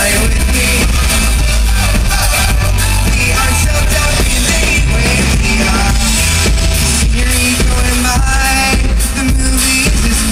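Live rock band playing loud and steady, with drums, bass and melodic lines, and some singing.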